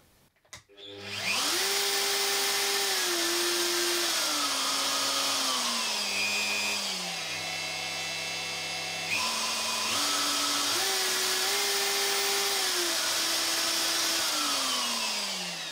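Bosch GOF 1250 CE router motor soft-starting about a second in and running unloaded, its pitch stepping down in several stages as the speed dial is turned down, jumping up sharply around the middle, then stepping down again and winding down near the end. Its constant-speed electronics with a Hall sensor make the speed rise sharply when turned up, and dip slightly then recover and hold when turned down.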